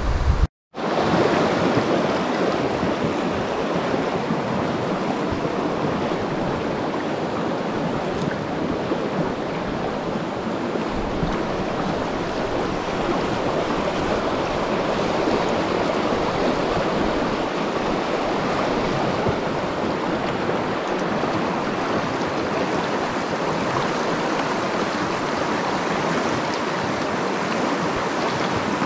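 River water rushing steadily, an even hiss of flowing current with no breaks after a momentary cut to silence near the start.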